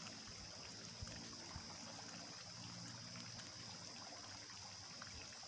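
Faint steady hiss with a few soft ticks and rustles as strips of young coconut leaf are tucked and woven by hand.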